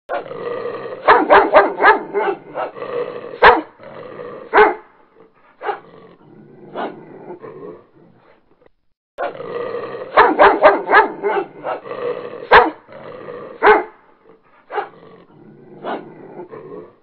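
Several dogs barking excitedly at an animal they have cornered, in quick runs of barks with scattered single barks and some growling between. The same run of barking plays twice, starting over about halfway through.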